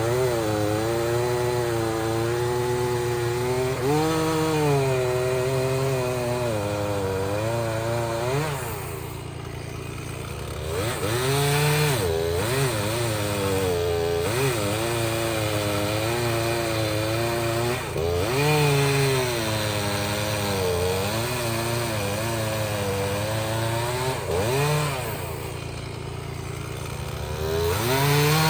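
Stihl MS 391 two-stroke chainsaw running at high revs, its pitch wavering up and down, typical of cutting wood. It eases off briefly twice, about a third of the way in and near the end.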